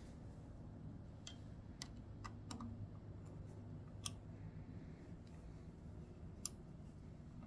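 Faint, scattered light clicks of a screwdriver and small parts against the mounting plate inside an open Ford three-cylinder tractor distributor, as the electronic ignition plate is being lined up and screwed down; the sharpest clicks come about four seconds in and near the end.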